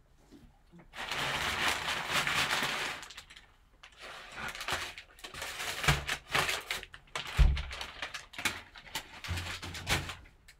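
Crumpled brown kraft packing paper rustling and crinkling as gloved hands dig through it, first in a steady rush and then as a run of quick crackles, with a couple of dull knocks.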